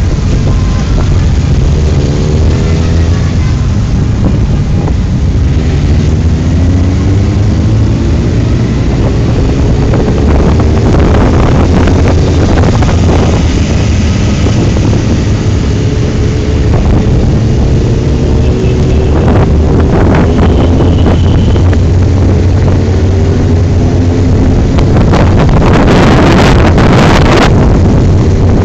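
Motorcycle engines in a group ride, running under way with their pitch rising and falling as the bikes speed up and slow down, over a steady low drone. Wind rushes and buffets over the microphone, crackling more strongly near the end.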